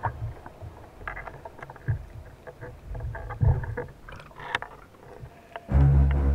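Underwater sound picked up by a camera below the surface: irregular clicks and low thumps of water and gear moving. Background music comes in loudly near the end.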